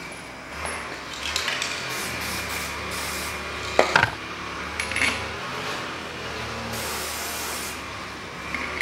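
Aerosol spray can hissing in a single spray of about a second near the end, after a few sharp metallic clicks and knocks of the can and steel parts being handled. A steady low hum runs underneath.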